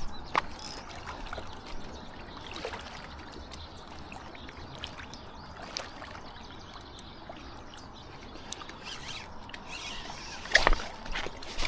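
Flowing water trickling steadily, with scattered small clicks and knocks and a louder knock about ten and a half seconds in.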